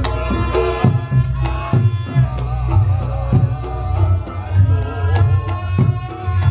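Reog Ponorogo gamelan music playing loudly. Quick kendang drum strokes sound over a wavering slompret reed-pipe melody, with deep sustained gong tones underneath.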